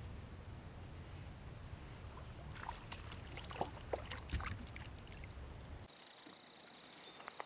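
Steady low wind-and-water rumble around a fishing kayak, with a cluster of sharp splashes and clicks in the middle as a hooked white bass thrashes at the surface beside the hull. About six seconds in, the rumble cuts off into a quieter stretch with a thin, steady high tone.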